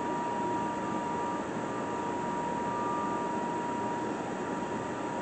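Monarch 10EE toolroom lathe running in back gear at speed: an even mechanical whir with a steady whine over it.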